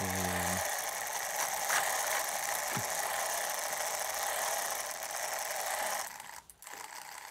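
Bicycle chain being cranked through a brush-type chain cleaner's degreaser bath, the rotating brushes scrubbing the links and plates: a steady mechanical whir that starts abruptly and stops about six seconds in.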